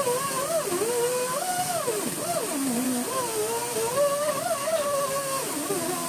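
Background music: a single smooth melody line that glides and wavers in pitch, with no tool or machine sound.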